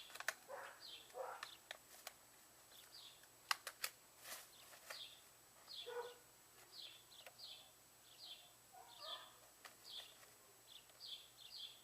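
Faint bird chirping: short, quick, downward-sliding calls repeated every half second or so. A few sharp clicks come in a cluster around three and a half to four seconds in.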